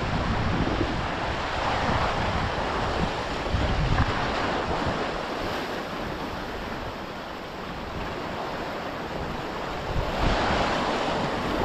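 Sea waves washing against shoreline rocks, swelling and easing several times, with wind buffeting the microphone.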